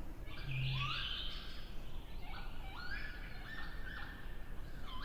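Northern lapwings calling: a series of calls that rise in pitch, several overlapping one another. A short low hum sounds about half a second in.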